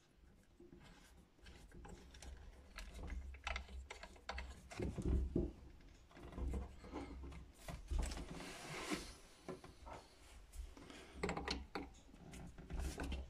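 A small plastic-threaded adapter being screwed by hand into a touch faucet's solenoid-valve box, giving quiet, irregular small clicks and rubbing handling noises.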